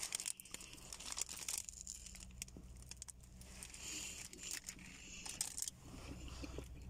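A paper sandwich wrapper crinkling and rustling in the hands while a bite is taken from a soft bread-roll sandwich, with faint clicks of handling and quiet chewing.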